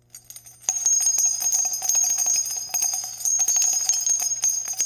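Small bells jingling, a fast run of ringing strikes that starts about two-thirds of a second in.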